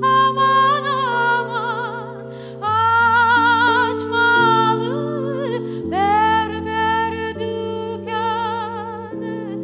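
A woman singing a Crimean Tatar song live with strong vibrato, over sustained keyboard and accordion chords that change every couple of seconds.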